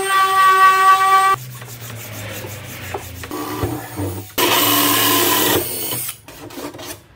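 A random orbit sander runs with a steady whine and cuts off a little after a second in. Then comes quieter rubbing from pine being hand-sanded along an edge. About four seconds in, a Bosch cordless drill spins a hole saw into a pine panel for about a second, followed by a few knocks.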